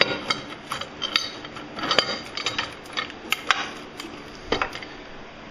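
Ratchet wrench clicking and metal tools clinking as the upper engine mount is unbolted, in short irregular bursts of sharp clicks.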